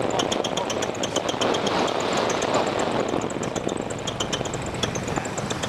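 Light aircraft engine and airflow making a steady rushing drone while flying through cloud, with a rapid run of short, high-pitched beeps over it.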